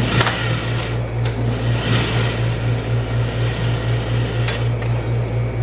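Juki industrial sewing machine running steadily as it stitches a second seam over the first, over the pulsing hum of its motor. Two brief clicks come just after the start and near the end.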